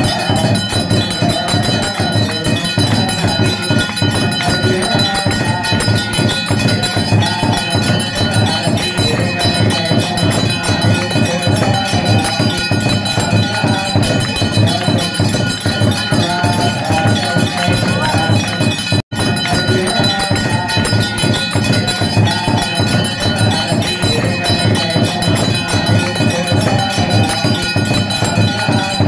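Temple bells clanging rapidly and continuously with dense percussion during a lamp aarti (harathi). The sound cuts out for an instant about two-thirds of the way through.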